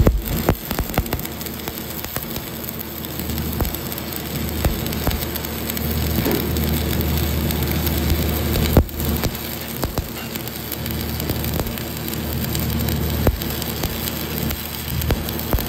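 Shielded metal arc (stick) welding: the electrode's arc crackling and sizzling steadily with scattered pops, over a low steady hum. One louder pop comes about nine seconds in.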